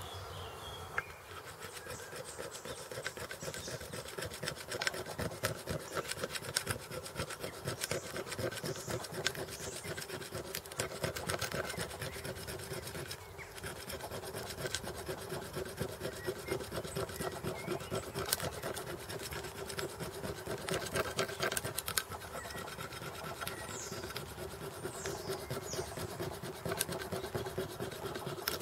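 A stone flake sawing back and forth across a deer antler, a continuous scraping rasp of quick short strokes as it cuts a groove to sever the antler.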